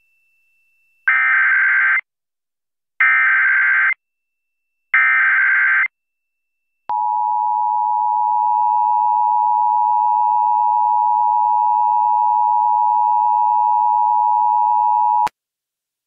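Emergency Alert System broadcast tones for a flash flood warning. Three one-second bursts of warbling SAME header data come a second apart, then the two-tone EAS attention signal sounds steadily for about eight seconds and cuts off sharply.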